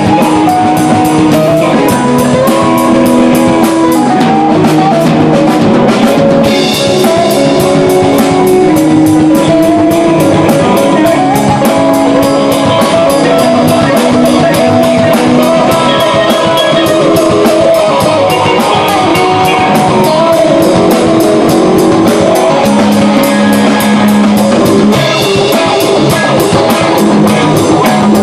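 Live band playing electric guitars, electric keyboard and drum kit, with held guitar and keyboard notes over a steady beat.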